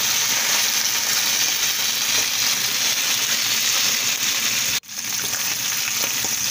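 Thin beef steaks sizzling steadily in hot oil in a frying pan as they are turned with a spatula. The sizzle cuts out for an instant about five seconds in, then carries on.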